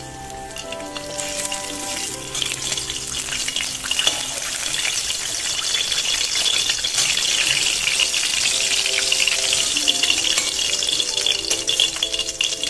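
Hot oil sizzling in an aluminium kadai as fried katla fish pieces are lifted out of it, swelling about a second in and then holding steady. Soft background music with held notes plays underneath.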